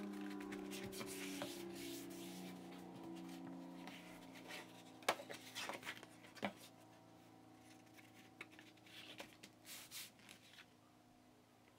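A cardboard pattern handled on a tabletop: soft rubbing and scraping as it is folded, pressed flat and slid by hand, with a few sharp clicks or taps near the middle. Faint sustained low tones sit underneath and fade out over the first half.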